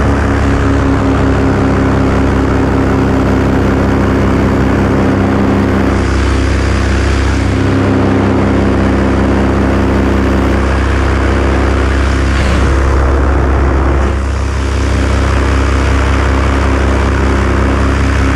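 Steady engine and propeller noise from the aircraft carrying the camera in flight, a constant low drone with a haze of wind noise over it.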